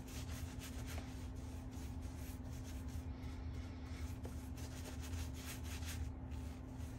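Shaving brush swirling lather over week-old stubble: faint, quick scratchy rubbing strokes, over a steady low hum.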